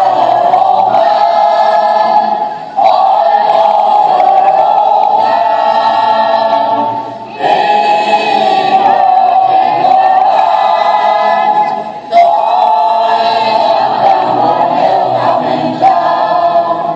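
A choir singing slow, long-held chords, phrase by phrase, with short breaks about every four to five seconds.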